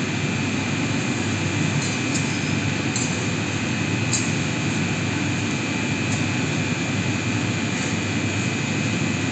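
Steady drone of running machinery in a water-cooled chiller plant room, with a thin steady whine above it. A few faint ticks come from plastic sheeting being handled.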